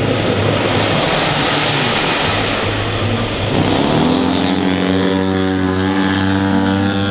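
Radio-controlled model airplanes: a rushing engine noise for the first few seconds, then, from about three and a half seconds in, a model's engine note that rises in pitch and holds steady with many overtones.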